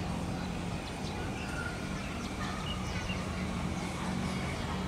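Steady outdoor background noise with a low hum, and a few short, faint high chirps scattered through it.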